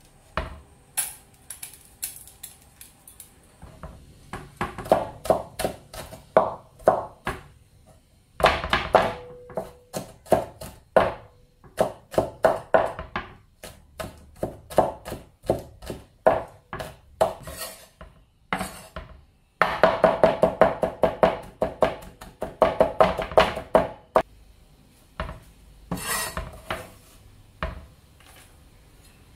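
Chinese cleaver chopping garlic cloves on a bamboo cutting board: runs of quick, sharp knocks broken by short pauses, with the fastest, densest run about two-thirds of the way through.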